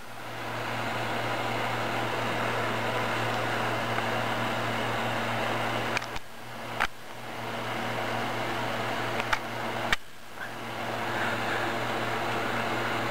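Steady background noise: a low constant hum under a hiss. It is broken by brief clicks and short drops in level about six and ten seconds in.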